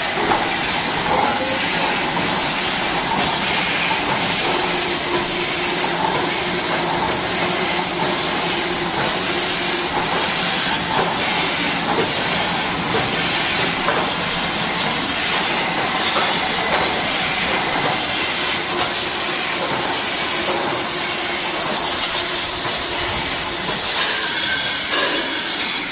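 Carbonated soft-drink bottling line running: a loud, steady hiss with light clicking and clatter from the rotary filler, capper and PET bottles on the conveyor.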